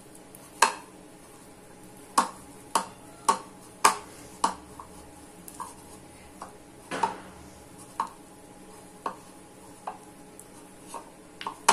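A hand kneading soft gulab jamun dough in a ceramic bowl: irregular sharp clicks and knocks, roughly one a second, as fingers and dough strike the bowl.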